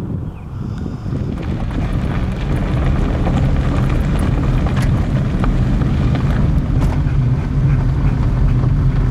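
Car driving: a steady low road and engine rumble that builds over the first few seconds and then holds, with scattered small ticks.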